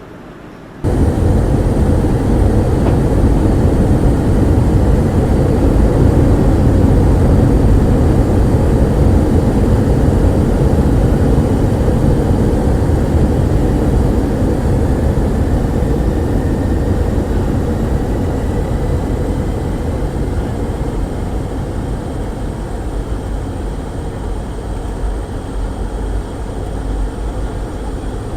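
Douglas DC-8 four-engine jet airliner running, a loud steady roar of engines and airflow with a deep rumble. It cuts in abruptly about a second in and slowly eases off through the second half, with a faint rising whine in the middle.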